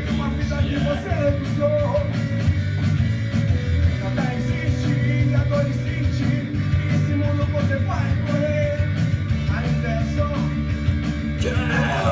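Rock music playing, with distorted guitars, drums and a shouted vocal.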